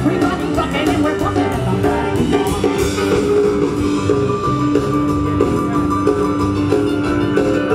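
Live rock and roll band playing through stage speakers, with electric guitar, drums and keyboard and some singing.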